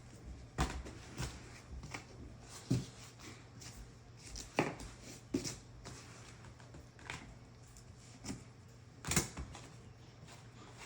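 Irregular clicks and light knocks, about ten scattered through, over a low steady hum: handling and tool work on an upholstered chair.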